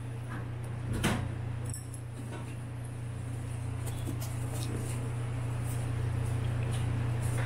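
Steady low hum of an eatery's room, with a single light knock about a second in and a few faint ticks.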